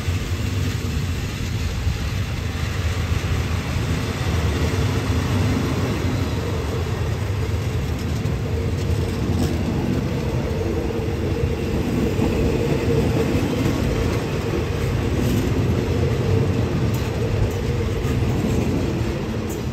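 Passenger train coaches rolling past at the platform: a steady rumble of steel wheels on the rails, with a few faint clacks about halfway through and near the end.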